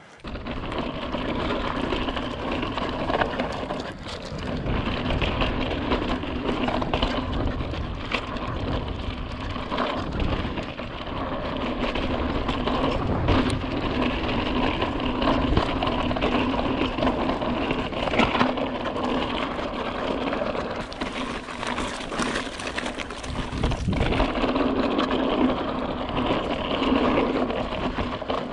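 Fezzari La Sal Peak hardtail mountain bike rolling downhill over slickrock: a steady rumble and hum from the knobby tyres on the rock, with small rattles from the bike.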